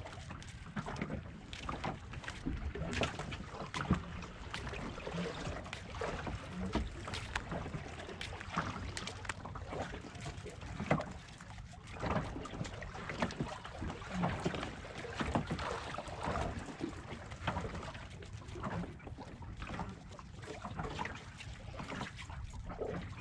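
Water slapping and lapping against the hull of a small open fishing boat riding the swell, with irregular knocks and splashes, over a steady low rumble of wind on the microphone.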